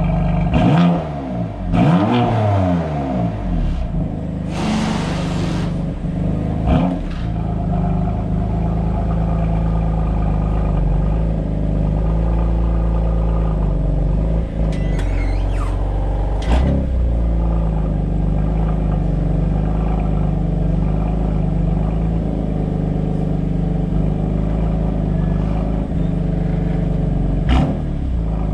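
Exhaust of a 2020 BMW M2 Competition's 3.0-litre twin-turbo inline-six, blipped twice about one and two seconds in, the pitch rising and falling each time, then idling steadily with a few short clicks. The engine is still cold from its start.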